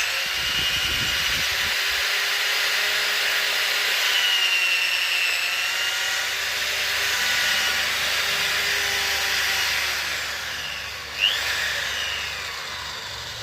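Electric drill running steadily with a high whine and grinding noise, easing off a little near the end, with a brief sharp squeal about eleven seconds in.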